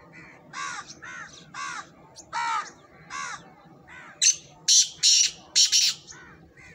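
Black francolin calling: a run of short, arched, rasping notes about every half second, then about four louder, harsher notes between four and six seconds in.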